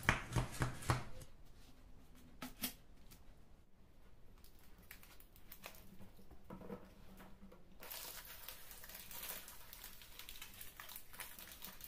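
A few sharp metallic clicks and knocks from a metal springform pan and wire cooling rack as a baked cake is released and turned out, one more knock a couple of seconds later. Soft paper rustling follows, growing brighter about eight seconds in.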